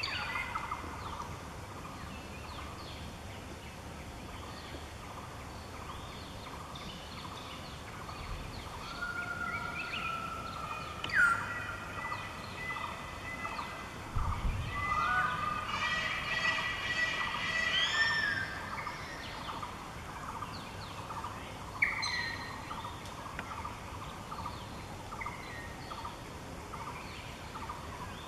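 Forest birds calling: a run of chirps and whistled calls that rise and fall, busiest in the middle stretch, over a steady background drone. A brief low sound comes about fourteen seconds in.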